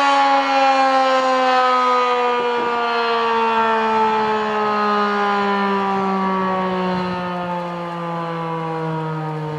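Federal 2001-SRN electromechanical outdoor warning siren winding down at the end of its test, its steady wail falling slowly and evenly in pitch and fading a little.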